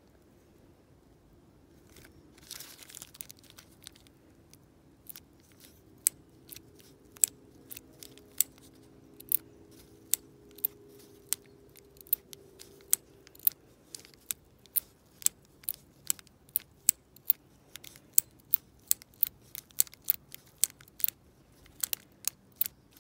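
Sharp metallic clicks, about two a second, from a pick worked in the keyway of a brass dimple lock cylinder, while the picker tries to free the jammed pins of a bricked core.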